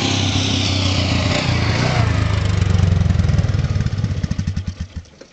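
A small engine running steadily, then shut off about four seconds in, its firing pulses slowing and dying away to a stop.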